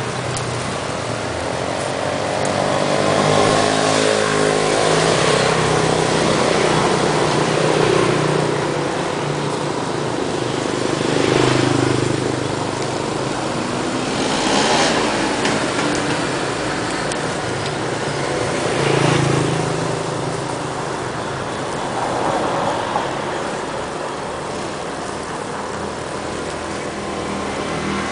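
Street traffic: about five or six vehicles pass one after another, each swelling up and fading away, over a steady low engine hum.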